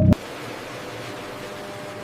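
A steady, even hiss with a few faint held tones beneath it, at a constant level.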